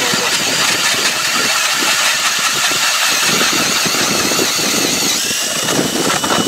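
Cordless drill driving an ice auger with self-sharpened Mora blades, boring through lake ice: a steady motor whine over the scraping grind of the blades cutting ice. The whine wavers at first, then evens out at one pitch about five seconds in.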